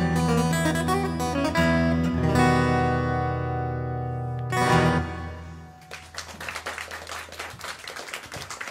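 Steel-string acoustic guitar played fingerstyle, closing a piece: held notes ring, then a final chord is struck about four and a half seconds in and left to ring out. From about six seconds in, a small audience applauds.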